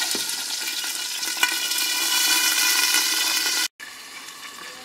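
Homemade sausage sizzling in hot oil in a cast-iron skillet, covered with a glass lid. The sizzle cuts out for a moment about three-quarters of the way through and comes back quieter.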